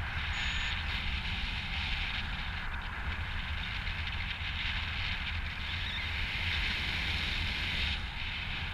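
Steady rush of airflow and wind buffeting on the camera's microphone during a paraglider flight, with a constant deep rumble beneath a hiss.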